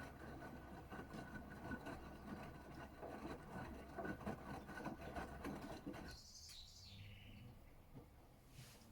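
Gorenje UseLogic front-loading washing machine running its wash, with the drum turning and water sloshing and clicking over a low motor hum. It cuts off suddenly about six seconds in as the drum stops, followed by a brief high-pitched sound that falls in pitch.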